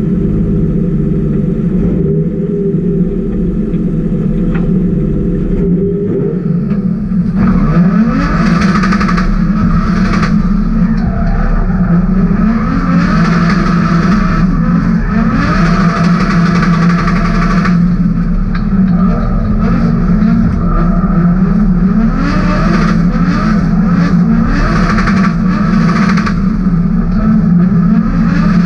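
BMW E30's M50B28 straight-six engine, heard from inside the cabin, running steadily at first. From about six seconds in it revs hard again and again in rising sweeps, with bursts of tyre squeal.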